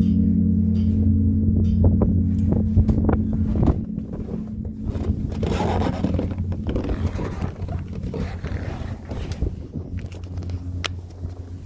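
A large monastery bell's hum dies away in the first four seconds or so, after the last stroke. Then comes wind rustle on the microphone with scattered small knocks.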